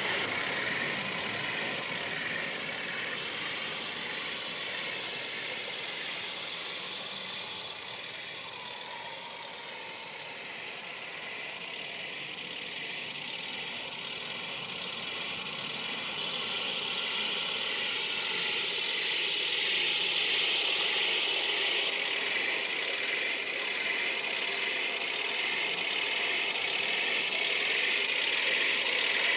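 Radio-controlled model Tiger tank running over grass while towing a toy gun: a steady whining mechanical sound that fades as the tank moves away and grows louder again as it drives back near.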